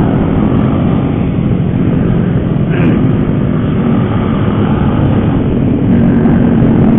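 Motorcycle engine running while riding, its note rising and falling a little, under a heavy, steady rumble of wind on the microphone.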